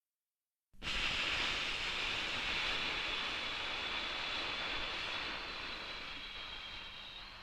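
Long breathing-out sound effect: a breathy hiss that starts suddenly about a second in and fades slowly, the long eight-count exhale of 4-7-8 breathing.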